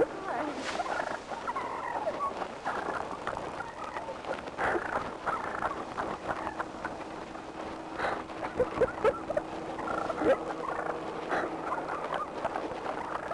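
A turkey gobbling and calling in runs of short, rapid notes, with the loudest calls about eight to ten seconds in.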